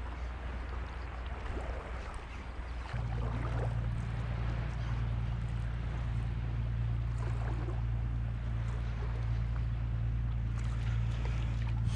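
Steady low wind rumble on an action camera's microphone, with small waves lapping around the rocks; the rumble gets louder about three seconds in.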